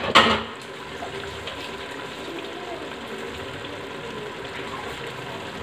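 Diced pattypan squash, onion and tomato sizzling steadily in an open aluminium pressure cooker on the stove, after a short knock right at the start.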